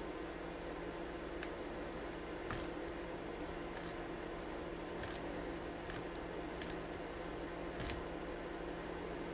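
Lock pick and tension wrench working the pins of a First Watch 50 mm brass padlock: about eight small, sharp metallic clicks at irregular spacing over a steady background hum.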